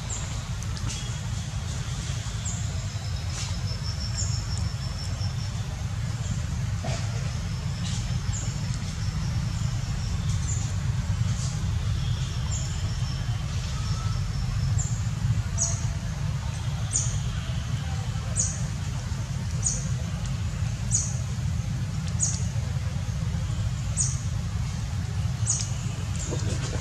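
Outdoor background sound: a steady low rumble, with short high chirps that repeat about every second and a half through the second half, and a few scattered clicks.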